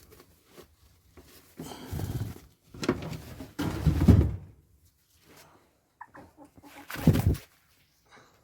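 Hens clucking, with three loud bouts of rustling and bumping close to the microphone, the last about seven seconds in.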